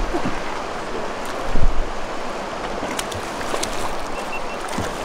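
River current rushing and washing around a drift boat as a steady, even noise, with a low thump about a second and a half in.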